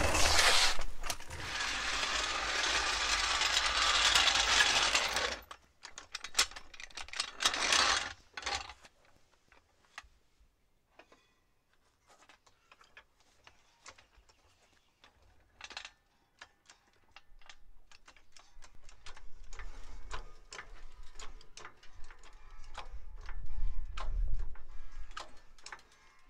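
A car jack being set under the front of a car and worked to lift it. It opens with a loud scraping rush lasting about five seconds, then scattered metal clicks, and after a quieter stretch a long run of dense clicking and ratcheting with a low rumble.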